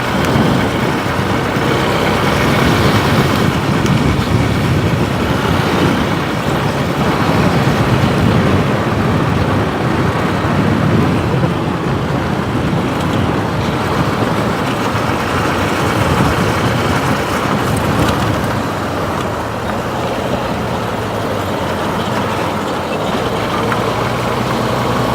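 Motorcycle running on the road with rushing wind and traffic noise. It eases off and turns quieter and steadier from about eighteen seconds in.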